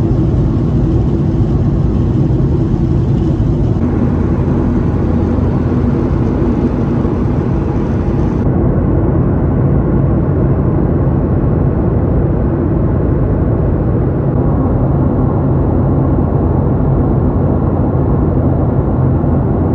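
Steady in-flight cabin roar of a Boeing 737-800: engine drone and rushing airflow, with a low hum underneath. About eight seconds in, the hiss loses its top and sounds duller.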